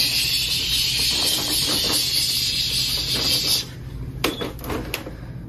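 A loud, unpitched hiss lasting about four seconds that cuts off suddenly, followed by a few short clicks and knocks.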